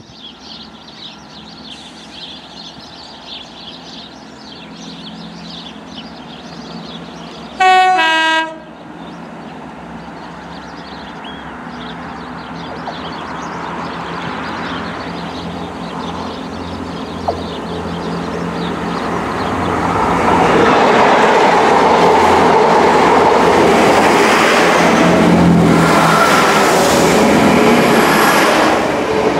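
A diesel multiple-unit train sounds its two-tone horn briefly about eight seconds in, then runs past close by. The rumble of its engine and wheels on the rails grows steadily louder and stays loud through the last third.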